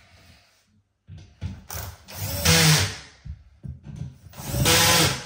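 Handheld power drill run in two bursts of about a second each, its motor pitch rising and falling, after a brief blip of the trigger.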